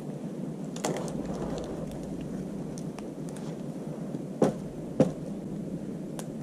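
Wood fire burning, a steady rush of flame with scattered crackles, and two sharp pops half a second apart a little over halfway through.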